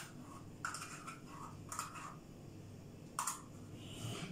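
A spoon softly scraping and tapping about four times as yogurt is spooned into a bowl of flour.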